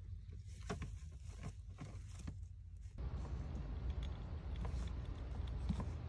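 Faint rustling and soft clicks from a baby macaw chick shifting about in wood-shaving bedding, over a low rumble that gets louder about halfway through.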